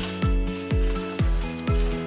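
Background music with a steady electronic kick-drum beat, about two beats a second, under held synth tones.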